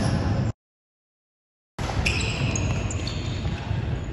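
Futsal game sounds in a large sports hall: short high squeaks and ball and foot knocks on the wooden floor, echoing. About half a second in the sound cuts to dead silence for just over a second, then comes back.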